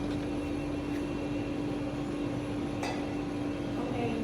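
A steady machine hum with one constant low tone, and a single sharp click about three seconds in.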